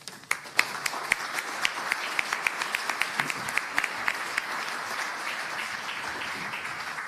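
Audience applauding: many hands clapping together, with the sharpest claps in the first few seconds, then thinning out near the end.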